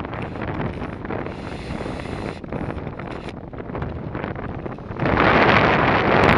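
Wind buffeting an action camera's microphone on a selfie stick during a tandem paraglider flight, a rough, gusty rush. It gets much louder about five seconds in.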